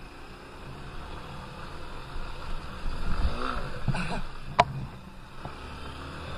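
Honda XR190L's single-cylinder four-stroke engine running as the bike rides over a dirt track, revving up about three seconds in and easing off again. One sharp knock about four and a half seconds in.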